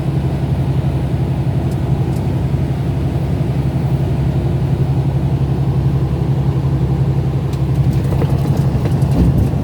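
Motor vehicle engine running steadily, a low hum with a fast, even pulse.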